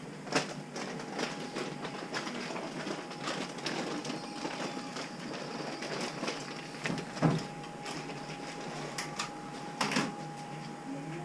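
Handling noise from a body-worn action camera: rustling and scattered knocks, with footsteps and shop room noise under it. A faint steady tone comes in about a second in, and the sharpest knocks fall near the start, in the middle and near the end.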